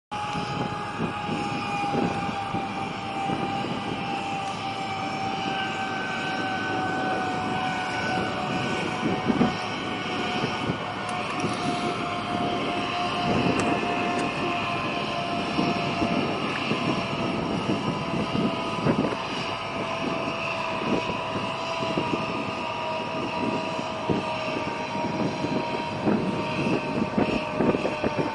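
A steady engine drone over outdoor noise, its tone falling slowly in pitch the whole time.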